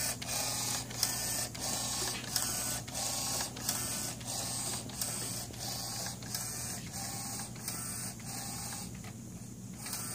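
Inkjet film printer printing a screen-print film positive: the print-head carriage shuttles back and forth about twice a second, each pass a whirring sweep, over a steady motor hum. The passes ease briefly about nine seconds in.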